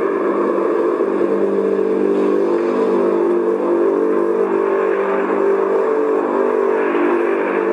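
Loud, steady droning hum made of several low tones held together, with no break or change in pitch.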